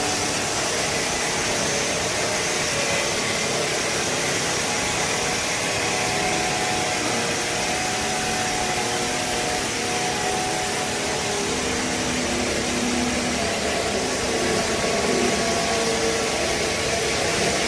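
Steady machine noise of a hydraulic baling press running, an even hiss and hum without breaks.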